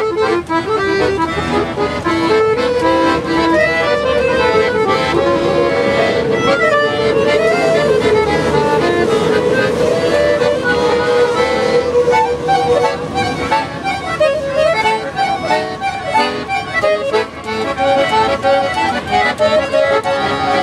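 Accordion playing a tune, with a long held note near the middle and quicker, more rhythmic notes in the second half.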